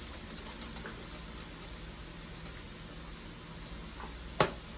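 Quiet kitchen sounds while a pot of ground meat is seasoned with paprika: a steady low hiss, a few faint ticks, and one sharp knock about four and a half seconds in.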